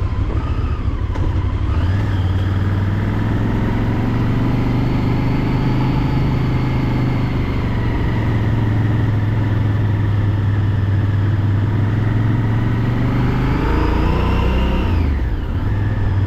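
Honda XL1000V Varadero's V-twin engine running steadily at low road speed, heard from the rider's seat. About fourteen seconds in, the engine note rises and then drops back.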